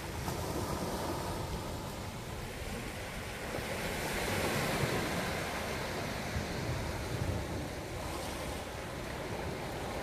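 Sea waves surging in and washing over rocks along the shore, a continuous rush of surf that swells twice, about halfway through and again a few seconds later.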